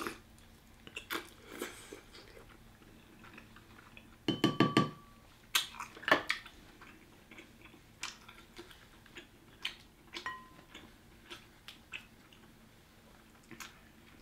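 Quiet, close-up eating sounds from a sauce-covered seafood boil: wet chewing and sucking of sauce off the fingers. Scattered small clicks come from shrimp shells and hands in a glass bowl.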